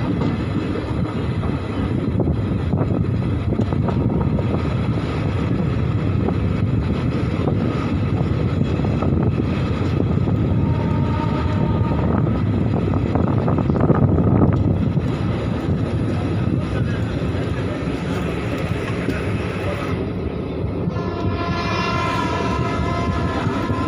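Jan Shatabdi Express passenger coach running through a station without stopping, heard from its open doorway: a steady rumble of wheels on rail and rushing air. A train horn sounds for about three seconds near the end.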